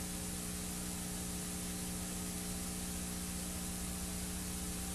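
Steady hiss with a low electrical hum underneath, unchanging throughout: the background noise of the recording and sound system, with no other sound.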